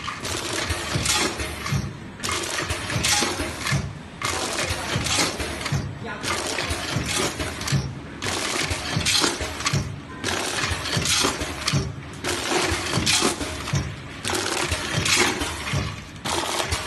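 Automatic bucket-conveyor and vertical bagging machine running on dry banana chips. Dense clattering and rattling of the chips and machine parts comes in a repeating cycle, with a brief lull about every two seconds.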